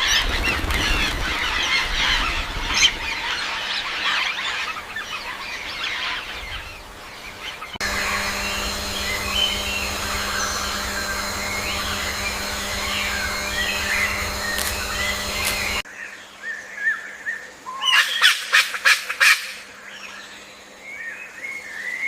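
Waterfowl honking and calling, in three short recordings spliced together with abrupt cuts; a burst of loud, sharp calls comes near the end.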